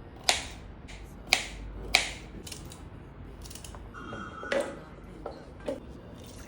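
Sharp clicks and knocks of kitchen utensils and containers being handled while preparing a drink, about eight in irregular succession, with a short steady tone about four seconds in, over a low hum.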